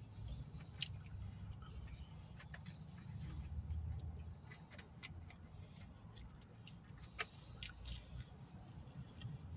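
Scattered small clicks and taps of cardboard nugget boxes being handled while people eat, over a low steady rumble inside a car. Two sharper clicks stand out, one about a second in and one about seven seconds in.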